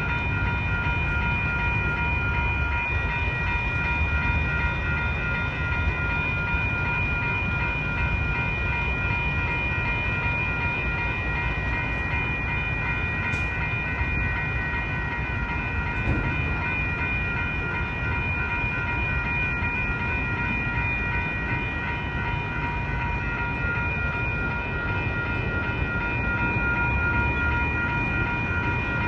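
Western Cullen Hayes electronic crossing bell (E-bell) at a railroad grade crossing, ringing continuously with a bright, unchanging set of tones over a low rumble.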